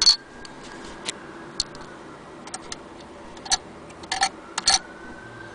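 Irregular sharp clicks and taps of metal parts being handled on an antique Singer 28K sewing machine. There is one loud click at the start and a cluster of louder clicks about three and a half to five seconds in.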